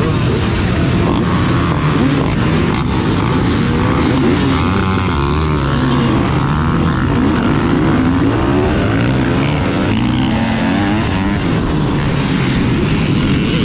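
Motocross bike engines revving hard as a pack of dirt bikes pulls away together, the nearest engine's pitch climbing and dropping over and over as it accelerates.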